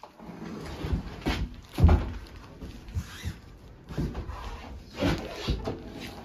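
A few irregular dull thumps and knocks over a low rumble, the loudest about two seconds in.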